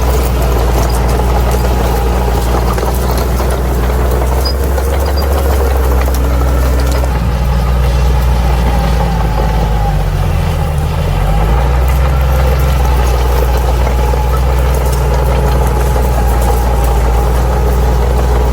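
Crawler bulldozer's diesel engine running steadily. Its pitch dips briefly and recovers about ten seconds in.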